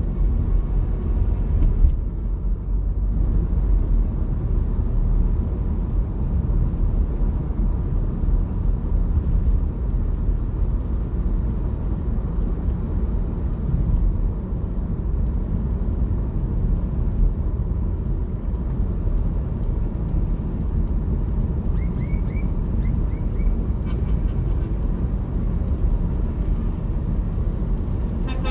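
Steady low road and engine rumble of a car driving, heard from inside the car. A horn tone dies away in the first second, and a few faint short high toots come about three-quarters of the way through.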